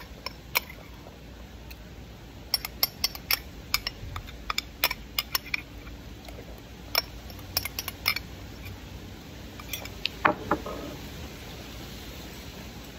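A metal spoon clinking and scraping against a glass bowl of thick açaí: a quick irregular run of sharp clicks and taps that thins out in the last few seconds.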